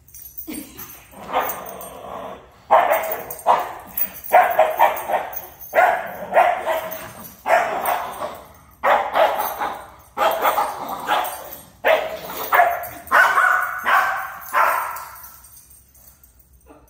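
Shih Tzu barking over and over in play, about twenty short barks in quick succession that stop near the end.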